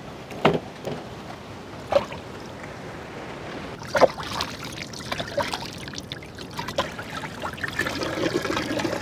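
Water poured from a plastic pot trickling and splashing over a skinned rabbit carcass as it is rinsed by hand over a steel pot. The pouring sets in about four seconds in and gets heavier near the end, after a few sharp taps from the wet carcass being handled.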